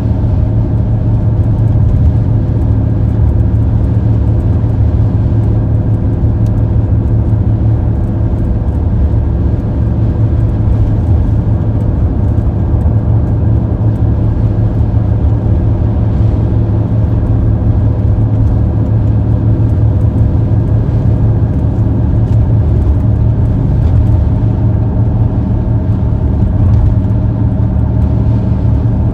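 A car driving at a steady speed: a loud, unbroken drone of engine and road noise, with a low hum and a few steady higher tones over it.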